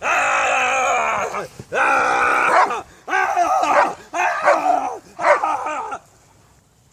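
An excited dog gives a run of five loud, drawn-out whining howls, each about a second long with a wavering pitch. The last one ends about six seconds in.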